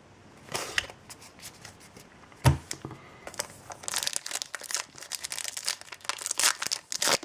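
Foil booster pack wrapper crinkling and tearing, denser in the second half, with a single sharp knock about two and a half seconds in.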